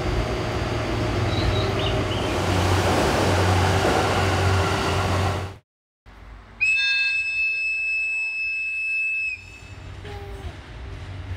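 A train runs by in a loud, steady rush, then after a short break a train whistle sounds one high, steady blast lasting about three seconds, followed by quieter train noise.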